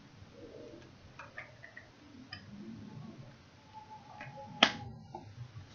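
A few sparse, faint clicks of a computer mouse and keyboard over quiet room noise, with one sharper click near the end.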